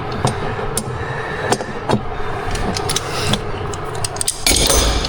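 Scattered light clicks and knocks of metal parts and hand tools being worked by hand, over a steady background noise. A short loud rushing burst with a low rumble comes near the end.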